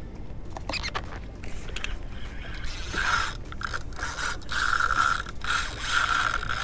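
Penn Battle II spinning reel being cranked against a hooked fish, a mechanical ratcheting whir of gears and drag. It comes in spurts that grow louder and longer in the second half.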